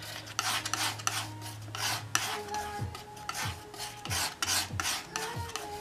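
Steel palette knife scraping and spreading oil paint on a palette in quick repeated strokes, about three a second, as white is worked into a flesh-tone mixture.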